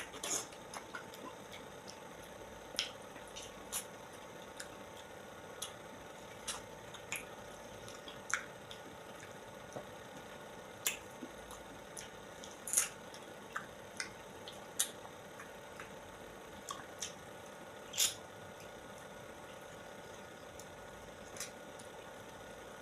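Wet mouth sounds of a person eating soft ripe fruit: irregular lip smacks and squishy clicks as the flesh is bitten and chewed, a few loud ones about 13 and 18 seconds in, over a faint steady hum.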